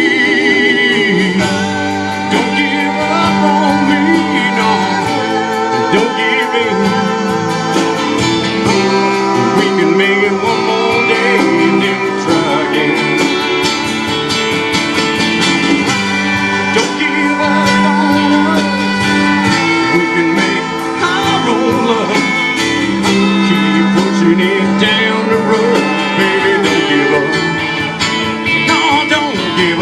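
Live country-rock band playing, with guitars over a steady beat; a lead line wavers and bends through the middle.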